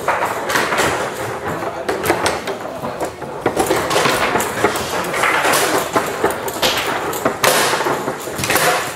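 Tecball foosball table in play: quick, irregular hard knocks and clacks of the ball striking the plastic men and table walls and of the rods being worked.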